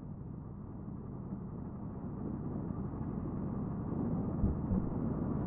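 Motorcycle riding along, its engine's steady low drone mixed with wind and road noise, growing a little louder over the few seconds.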